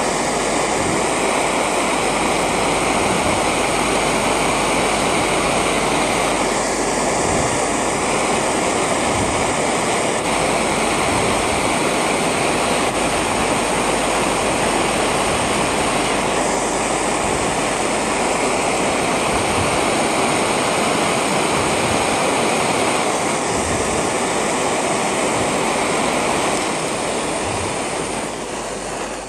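Jeweller's soldering torch flame hissing steadily as it heats gold chain links red-hot, dying away near the end.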